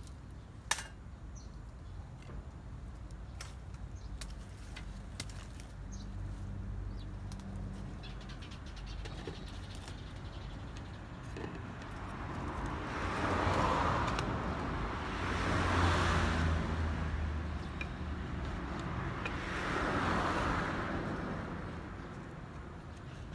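Carved wooden bucksaw parts being handled and fitted together on a wooden deck, with scattered light clicks and knocks and one sharper click under a second in. In the second half come three slow swells of rushing noise, each rising and falling over about two seconds, and these are the loudest sounds.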